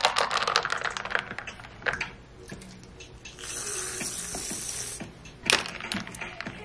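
Milk poured from a frother jug into a glass of ice, with ice clinking, then an aerosol can of whipped cream hissing for about a second and a half as it sprays onto the drink. Near the end a metal straw clinks against the ice in the glass.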